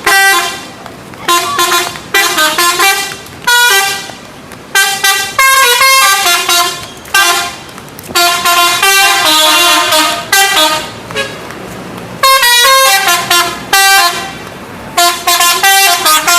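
Indonesian bus 'telolet' musical horn playing tunes: repeated loud phrases of stepped notes, each lasting one to three seconds, with short gaps between them.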